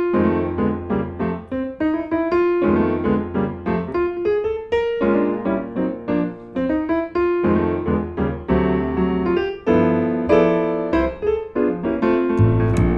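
Background music played on piano or electric piano, with a steady run of struck notes over a bass line. Drums and percussion come in near the end.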